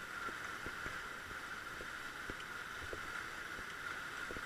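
Faint, steady rush of river water around a raft, with a few soft knocks.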